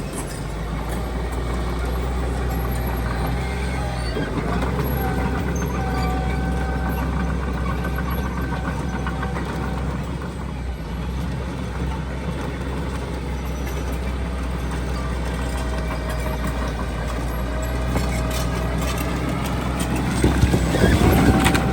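Heavy diesel earthmoving machinery running, a steady low engine drone with whining tones above it. Near the end it grows louder, with clanking and rumbling.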